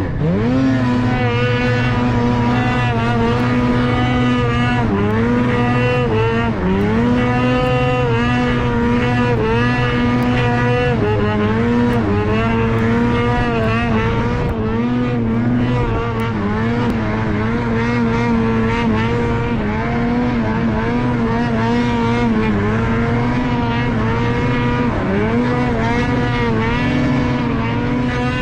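Snowmobile engine running under throttle. Its revs drop briefly and climb back again every few seconds.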